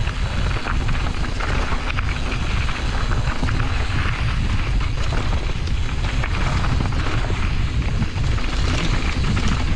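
Mountain bike descending a dirt forest singletrack at speed: a steady heavy wind rumble on the action camera's microphone, with tyre noise on the dirt and many small knocks and rattles from the bike over the bumps.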